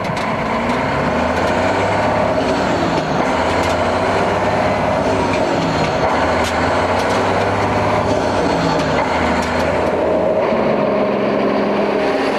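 Heavy truck engine running under way, heard from inside the cab, its pitch shifting in steps several times.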